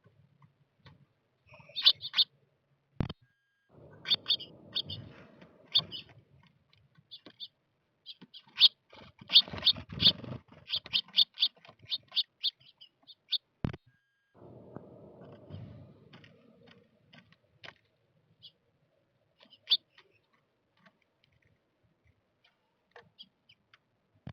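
Small birds at a feeder chirping in quick runs of short, high chirps, loudest and densest around the middle, with stretches of rustling and two sharp clicks. The chirping thins to a few scattered calls near the end.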